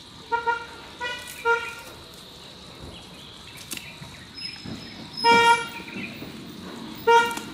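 About five short, horn-like toots at one steady pitch: three in quick succession at the start, a longer, louder one past the middle, and a short one near the end.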